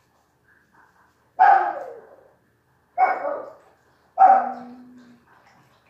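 A dog barking three times, loud and short, about a second and a half apart.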